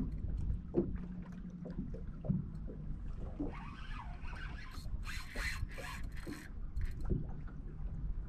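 Low rumble of wind and water around a small fishing boat, with light knocks, and a few short rasping scrapes about halfway through, the two loudest close together.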